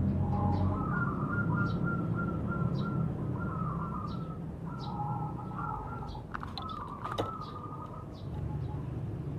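Zebra dove (perkutut) singing its cooing song, long runs of quick soft repeated notes that pause briefly near the end. Faint high chirps from a small bird come about once a second, and two sharp clicks fall around six and seven seconds in, over a steady low background hum.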